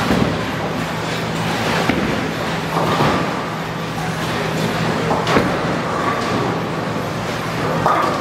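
Bowling alley din: a steady rumble and hum of balls rolling on the lanes and the lane machinery, broken by a few sharp knocks of balls and pins, the loudest about five seconds in.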